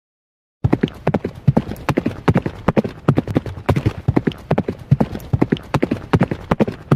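Hoofbeats of horses at a gallop, a quick run of sharp strikes in loose clusters that starts about half a second in and carries on.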